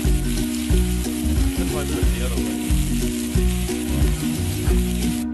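Thin-sliced chicken breasts sizzling steadily as they fry on a gas griddle's flat steel top, cutting off abruptly at the end. Background music with a steady bass beat plays underneath.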